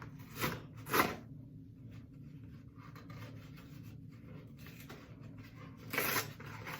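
Short rubbing and scraping noises of things being handled: two brief scrapes about half a second apart near the start, then a longer rub near the end.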